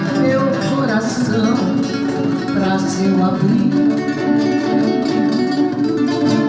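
Classical guitar played solo: a fingerpicked melody of quick plucked notes over bass notes.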